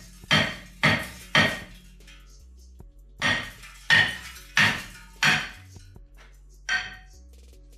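Heavy hammer striking the rust-stuck front brake rotor of a 2017 Chrysler Pacifica to knock it off the hub, each blow ringing briefly. Three blows come in quick succession, then after a pause four more, and one last blow near the end.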